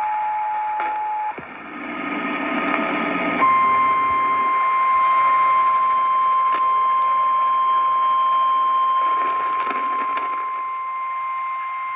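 Broadcast weather alert tone over radio static: a steady, piercing single beep starts about three and a half seconds in and holds unbroken, announcing a flash flood emergency warning. Just before it, a different steady tone cuts off about a second in, leaving a couple of seconds of hissing static.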